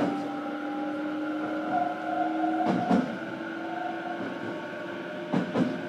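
Inside a JR Kyushu BEC819 DENCHA battery-electric train: a steady electric whine from its drive equipment over the running noise, with two brief clatters, about three seconds and five and a half seconds in.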